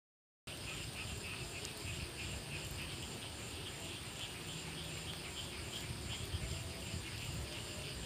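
Insects chirping at night in a steady, even rhythm of high pulses, starting about half a second in.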